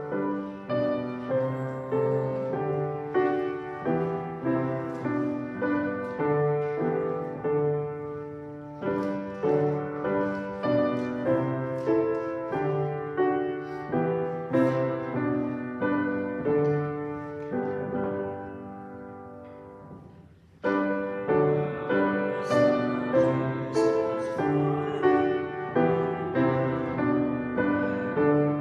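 Piano playing a hymn tune in even, chordal phrases. It eases off and pauses briefly about twenty seconds in, then starts again.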